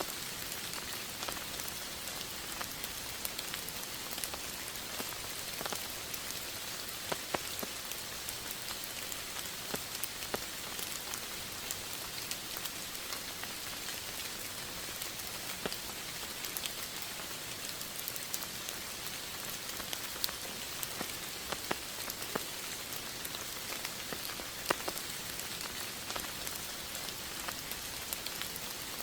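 Steady rain falling on a surface: an even hiss with many scattered, distinct drop ticks.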